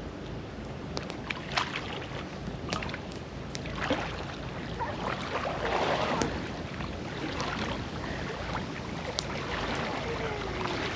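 Water sloshing and splashing, with wind on the microphone and a few sharp ticks; the water noise swells for a few seconds around the middle.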